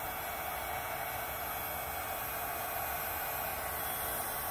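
Electric heat gun set to 1350 degrees running with a steady hiss of blown air and a faint hum. It is heating a sun-faded plastic kayak hull to darken and rejuvenate the plastic.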